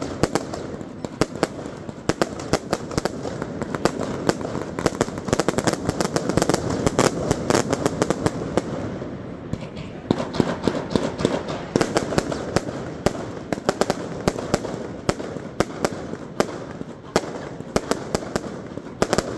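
Fireworks and firecrackers going off in a dense, continuous barrage, many sharp bangs and cracks a second, over a steady background din.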